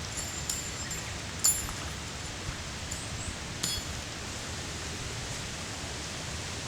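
A few light metallic clinks, each ringing briefly, over a steady outdoor hiss: camping gear being handled.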